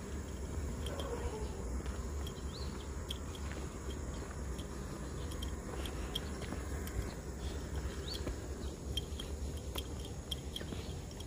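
Footsteps crunching on a gravel road shoulder while walking, over a steady low rumble, with scattered faint ticks and two short rising chirps.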